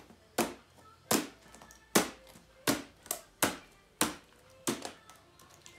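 High-heeled shoes stamping on an open laptop's keyboard: about eight sharp clacks at an uneven pace of roughly one every half second to a second, stopping about a second before the end.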